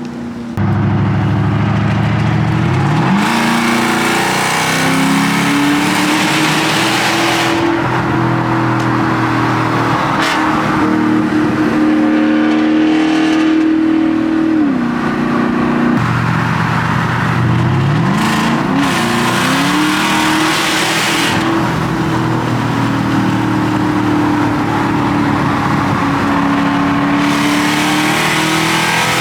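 A 2006 Porsche Cayenne S 4.5-litre V8 running through a muffler-delete exhaust, loud throughout. About half a second in it opens up and the pitch climbs over the next few seconds, then holds at high revs. It drops back about fifteen seconds in and climbs again a few seconds later.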